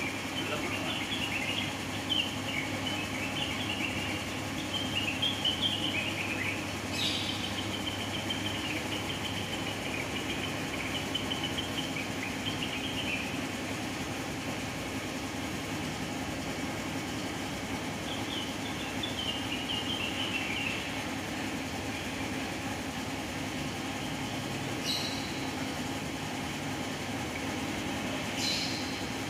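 Cucak wilis (trengganis) songbird singing long runs of quick, high chattering notes, pausing for several seconds in the middle before a shorter phrase. A steady low hum runs underneath, with a few sharp clicks.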